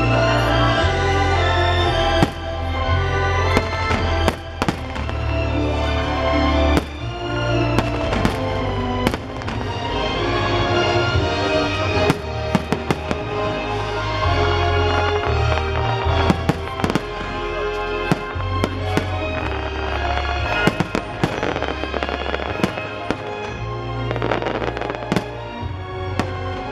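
Fireworks bursting in frequent sharp bangs and crackles over loud show music that plays without a break.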